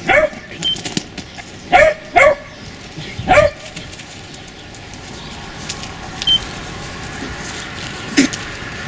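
Beagle puppies barking: four short barks in the first three and a half seconds, then one more near the end.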